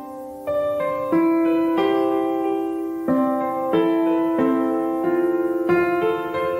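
Background piano music: a calm melody of single struck notes and chords, each ringing and fading, a new note about every half second to a second.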